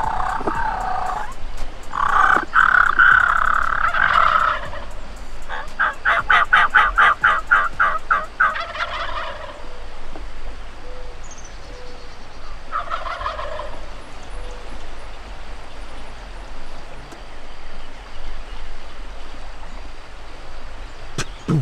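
Wild turkey gobblers, Rio Grande birds, gobbling repeatedly: loud rattling gobbles in the first half, then a fainter gobble about two-thirds of the way in.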